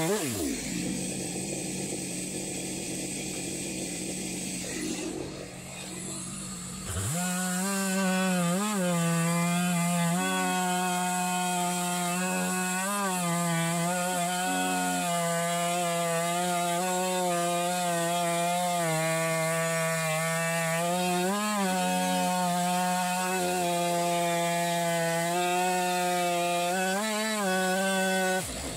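Chainsaw in an Alaskan chainsaw mill ripping a cedar log lengthwise at full throttle, its engine note dipping briefly every few seconds as the bar loads up in the cut. For the first few seconds the engine winds down and runs quieter before the full-throttle cutting sound comes back in.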